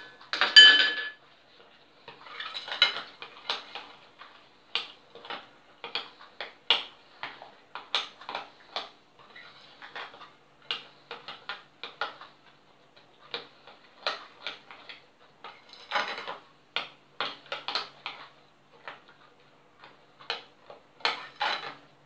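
Metal spoon stirring a thick walnut, raisin and cocoa filling in a glazed ceramic bowl, clinking and scraping against the bowl in irregular knocks a few times a second. One louder ringing clink comes about half a second in.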